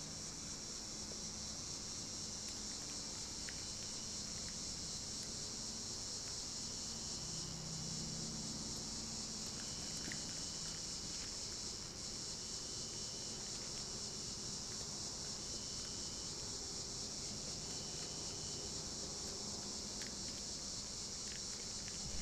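Insect chorus of crickets: a steady high-pitched chirring throughout, with a second, slightly lower insect call joining in short stretches in the middle.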